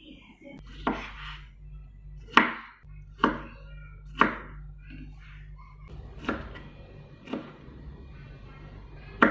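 Kitchen knife chopping fresh strawberries on a wooden cutting board: seven sharp knocks of the blade striking the board, spaced roughly a second apart and somewhat uneven.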